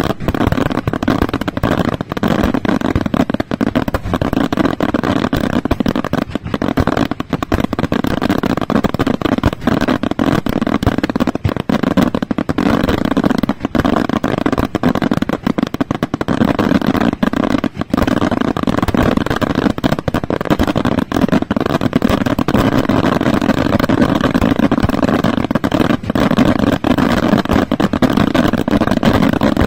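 Daylight fireworks: aerial shells bursting overhead in a rapid, unbroken barrage of explosions and crackle, dense enough to run together into one continuous rattle.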